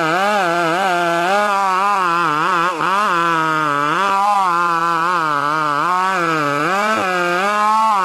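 Two-stroke chainsaw running at high revs while cutting wood, its pitch wavering up and down as it works in the cut, with a brief dip a little under three seconds in.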